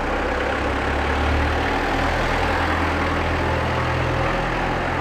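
A car engine idling steadily: a low hum with noise above it, the low hum a little weaker near the end.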